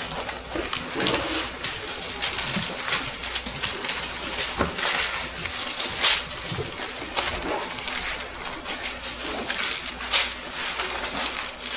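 Thin Bible pages being leafed through and handled close to a clip-on microphone: repeated paper rustles and flips, with a couple of sharper clicks about six and ten seconds in.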